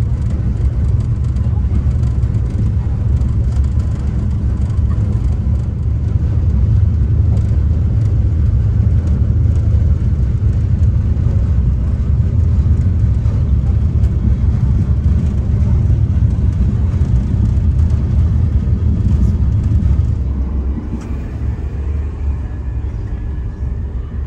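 Steady low rumble of a Eurostar (ex-Thalys) high-speed train's passenger cabin while the train is running, with a hiss of running noise above it. The rumble eases slightly about 20 seconds in.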